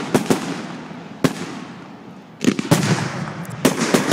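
Aerial fireworks bursting overhead: a run of sharp bangs at irregular intervals, each fading out, with a few coming close together about two and a half seconds in.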